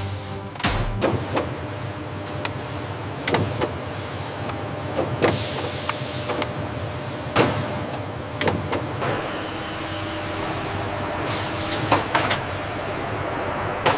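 Assembly-line machinery: a steady machine hum with irregular sharp clicks and clanks, about one a second.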